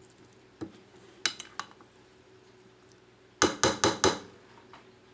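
Serving utensil clinking against a large bowl while salad is being stirred: a few scattered clicks, then a quick run of about five loud clinks about three and a half seconds in.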